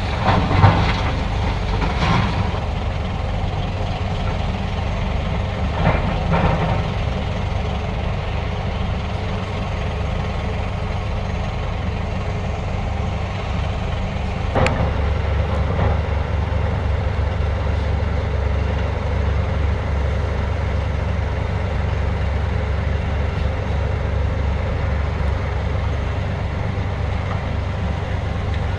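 Heavy diesel machinery of an excavator loading a dump truck, running steadily. A few clanks and thumps in the first seconds and a sharp bang about halfway, after which the low engine rumble grows louder.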